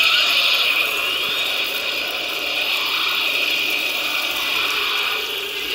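High-pressure water jet from a kitchen faucet, pressure-washer strength, spraying in a steady loud hiss.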